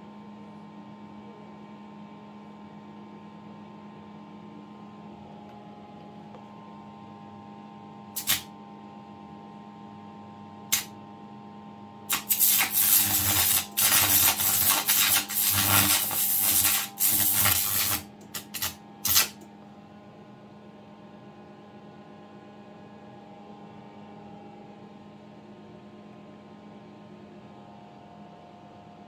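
Steady electrical hum from the arc lamp's home-built transformer power supply. Two short crackles come about eight and eleven seconds in, then the carbon arc is struck: about seven seconds of loud, rough arc noise that cuts in and out before it stops and the hum is left alone.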